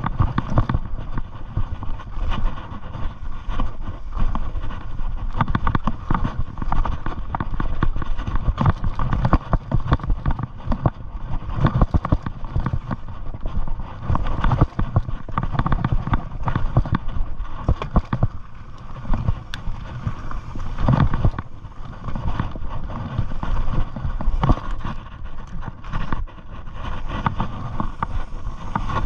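Mountain bike rolling over a rocky trail: tyres crunching over rock and gravel with constant irregular knocks and rattles from the bike as it takes the bumps.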